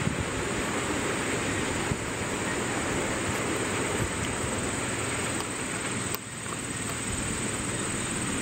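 Wind buffeting the microphone: a steady rush of noise with uneven low rumbling gusts, easing briefly about six seconds in.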